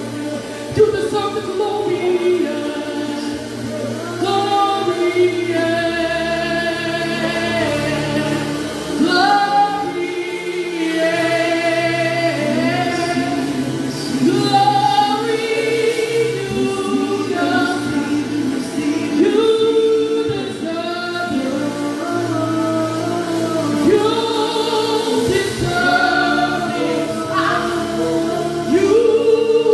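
Gospel worship singing by a group of voices, long held and wavering notes without clear words, over sustained low accompaniment chords.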